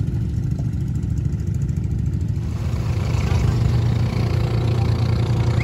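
Low, steady drone of outrigger motorboat engines out on the water. More hiss comes in about halfway through.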